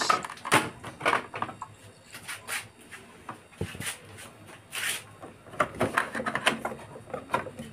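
Plastic fairing panels of a GY6 scooter being pried apart by hand: a run of short, irregular clicks and knocks as the panels and their tabs shift and come loose.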